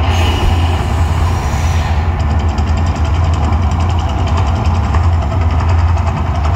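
Mirage volcano eruption show: a loud, steady deep rumble with a dense roar over it, and a brief hiss in the first two seconds as fire bursts from the rock.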